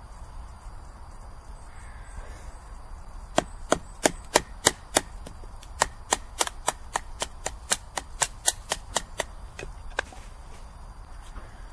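A wooden baton striking a carved wooden wedge to split a piece of firewood, with sharp wood-on-wood knocks. About twenty strikes come in two runs of about three to four a second: the first starts about three seconds in, the second follows a short pause, and a last knock comes near the end.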